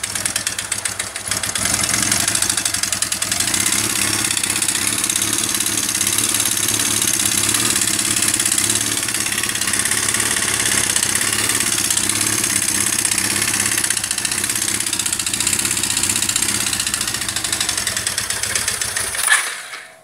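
Honda CBR 450SR's air-cooled single-cylinder four-stroke engine running steadily with an abnormal mechanical noise, then shutting off near the end. The owner took the noise for a valve problem; when the engine was opened, the cause proved to be a melted, cracked piston, which the mechanic put down to fuel starvation.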